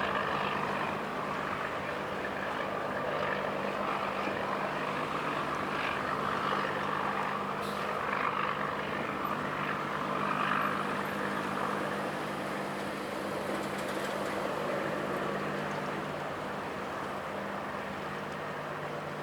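A tugboat's diesel engine droning steadily while it tows a barge, under a rushing noise of wind and choppy water that swells and eases.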